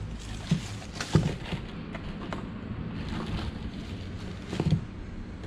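Sneakers and their shoebox and packaging being handled: a few soft knocks and some rustling over a steady low background hum.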